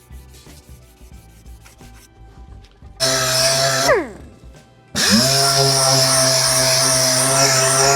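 Dual-action (DA) orbital sander sanding car body panels. It starts about three seconds in, spins down with a falling whine, then starts again about five seconds in and runs steadily with a hum and hiss.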